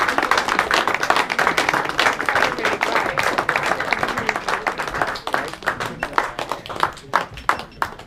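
Applause from a small audience, dense at first, then thinning over the last few seconds into a few scattered claps.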